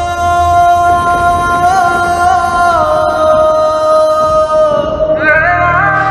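Arabian-style music: a single long held melodic line that slides between a few notes with small ornaments, with fuller chord tones joining near the end.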